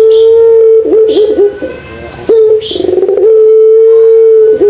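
Puter pelung dove cooing: long, drawn-out coos held on one steady low pitch, broken by quick runs of short hooked notes. Faint high chirps sound behind it.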